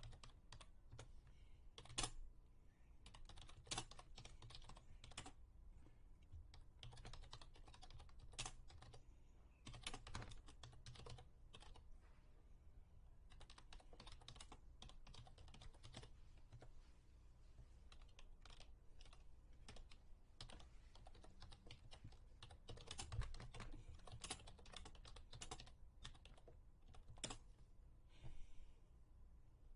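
Faint typing on a computer keyboard: irregular keystroke clicks in quick runs, with short pauses between them.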